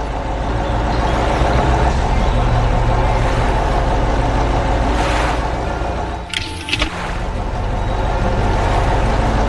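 Animated heavy machine's engine running with a steady low rumble, mixed with background music; the sound briefly dips about two-thirds of the way in.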